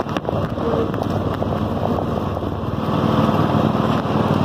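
Toro riding lawn mower's 22-horsepower Kohler V-twin engine running steadily as the mower drives along, with a few light clicks in the first second or so.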